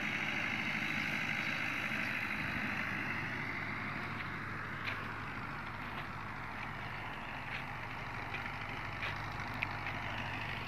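Fiat 640 tractor's diesel engine running under load while pulling a laser land leveler, a faint steady hum that drops off a little after about two seconds. A few faint ticks come later.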